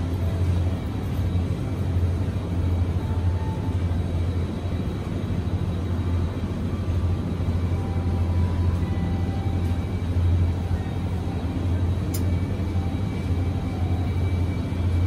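Steady low hum of supermarket ambience beside open refrigerated meat display cases, the cooling units' drone underneath faint in-store music, with a single sharp click about twelve seconds in.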